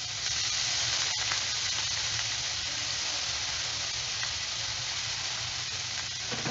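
Chopped onion sizzling steadily in hot oil in a frying pan, with one faint click about a second in.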